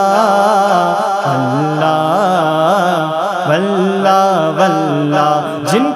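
Naat sung by a male voice: a wordless melodic line gliding up and down over a sustained low backing tone.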